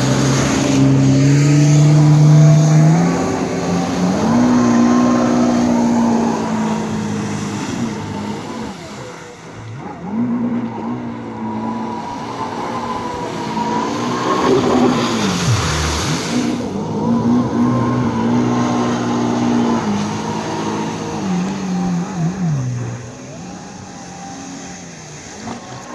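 Jet ski engines running and revving, their pitch climbing, holding and falling off several times as the throttle is worked, with a rush of water spray about fifteen seconds in.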